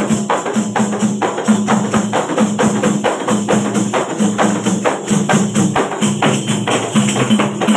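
Several hand-held daf frame drums beaten together in a fast, even rhythm, about four to five strokes a second.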